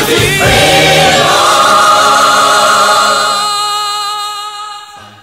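Background music: a choir of layered voices holding one long sustained chord that fades out over the last two seconds.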